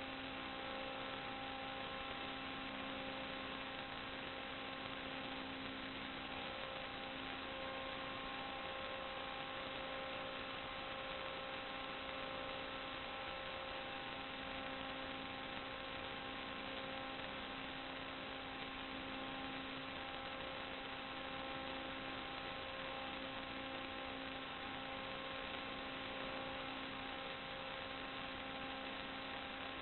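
Steady electrical hum and hiss with a few unchanging tones: the noise of an FPV video link's audio channel.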